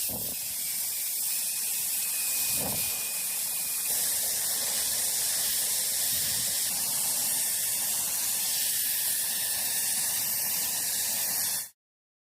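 Airbrush spraying paint: a steady hiss of air that cuts off suddenly near the end.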